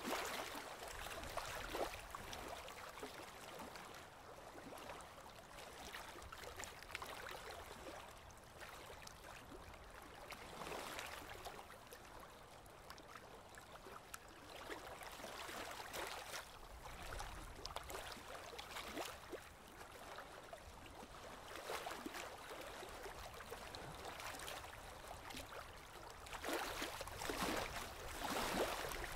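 Harbor water sloshing and splashing against the pier, swelling and easing every few seconds, loudest near the end.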